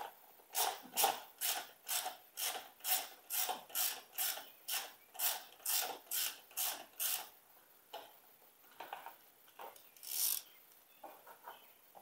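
Ratchet wrench clicking on its back-swings as a bolt is unscrewed, about two strokes a second for some seven seconds, then stopping; a few softer handling clicks follow, with one louder one near the end.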